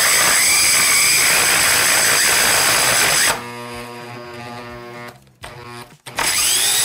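Hychika corded mini circular saw running with a high whine as it cuts a wood block. About three seconds in, the cutting sound suddenly drops to a lower steady hum when the blade gets caught near the end of the cut. About six seconds in, the saw runs up loudly again.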